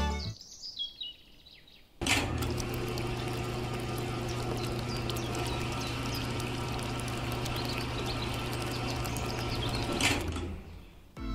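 Small electric motor of a toy home-made concrete mixer switched on about two seconds in, turning the drum with its wet mix in a steady hum and gritty churning, then running down and stopping near the end as it is switched off.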